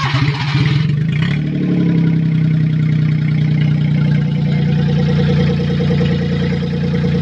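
Truck engine with headers being started: short rhythmic cranking, then it catches about a second in and settles into steady, even running.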